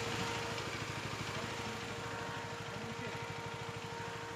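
Motorcycle engine running steadily at an even speed, with a rapid, regular low pulsing and a constant tone above it.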